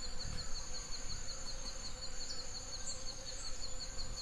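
Insects trilling in a forest ambience: a steady high-pitched trill alongside a second, rapidly pulsing chirp, over a faint low hum.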